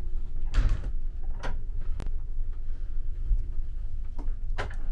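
Steady low hum of the ferry's machinery in a small cabin, with a few sharp clicks and knocks as a hand handles a wall-mounted wire-net basket and a metal grab handle: three in the first two seconds and one more near the end.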